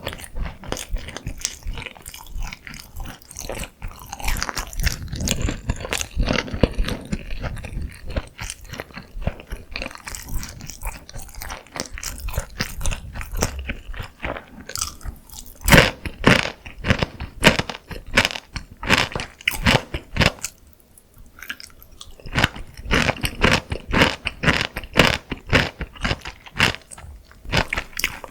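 Close-miked biting and chewing of crispy Korean fried chicken (dakgangjeong) coated in sauce, with dense crackling crunches. There is a short quieter pause about two-thirds of the way through.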